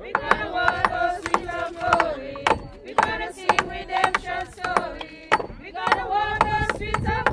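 Voices singing a slow gospel hymn in church over sharp percussive beats at about two a second, keeping time.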